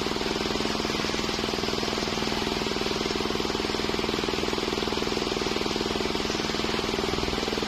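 Homemade circular sawmill running steadily, its motor giving a fast, even pulsing hum under a constant hiss.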